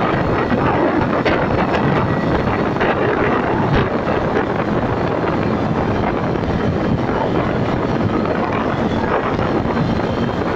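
Dirt bike and quad bike engines running steadily at road speed, with heavy wind noise on the microphone.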